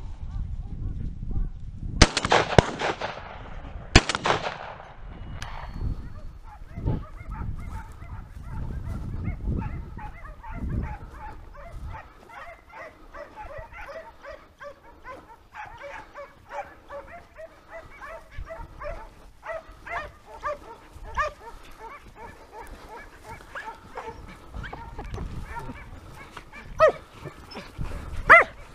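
Two shotgun shots about two seconds apart, each echoing, then a pack of hunting hounds baying and barking without pause as they run to and close in on the shot wild boar.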